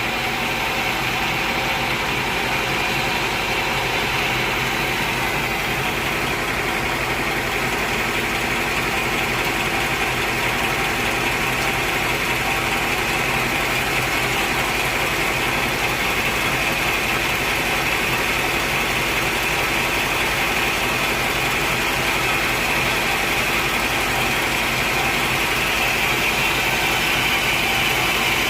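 Sawmill machinery running steadily: a continuous, even mechanical noise with a constant hum, unchanging throughout.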